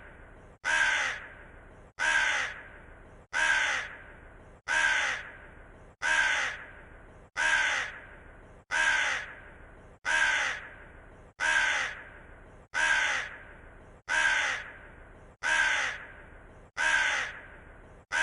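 Raven cawing: the same harsh, falling caw repeated at an even pace, about one call every 1.3 seconds, each starting abruptly and fading away.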